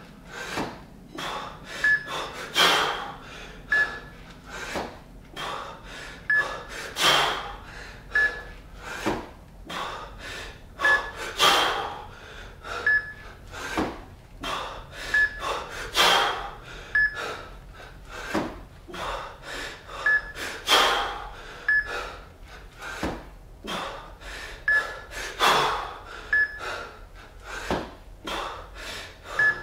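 Hard breathing of a man doing two-arm kettlebell jerks with a pair of 20 kg kettlebells: a loud, sharp exhale with each rep about every four and a half seconds, and quicker breaths between. Throughout, a Fixometer on the bells gives a short high beep a little more than once a second.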